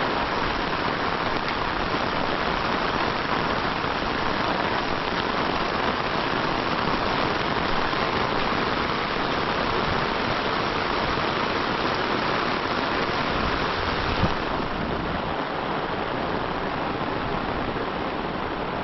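Heavy rain falling steadily, a dense even hiss. A single knock comes about fourteen seconds in, after which the rain sounds slightly duller.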